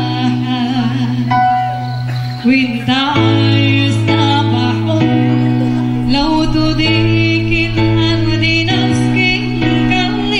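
Live band music amplified through a PA, with a woman singing into a microphone in wavering held notes over keyboard chords that change every second or two.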